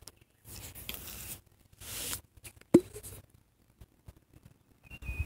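Faint scattered scratchy handling noise, with one sharp click a little past halfway. A thin high tone begins near the end.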